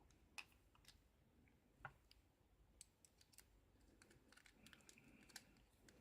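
Faint scattered metallic clicks and ticks from a padlock being taken apart with a Phillips screwdriver. Two sharper clicks come early, and a quicker run of small clicks follows in the second half.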